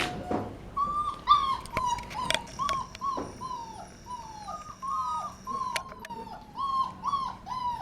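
Very small puppy whimpering: a long string of short, high whines, most falling in pitch, about two or three a second.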